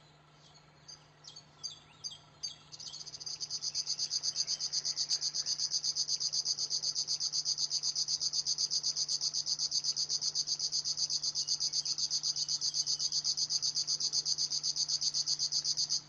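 River warbler singing: a few short, separate notes at first, then from about three seconds in a long, even, rapidly pulsed high-pitched reeling song that cuts off suddenly at the end.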